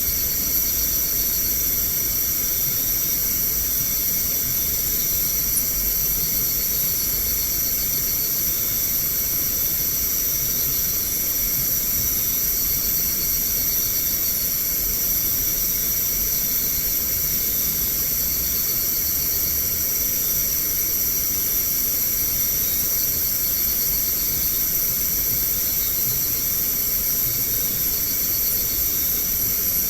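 Night-time outdoor ambience picked up by a CCTV camera's microphone: a steady high hiss with shrill, pulsing trills near the top of the range, like night insects, coming and going.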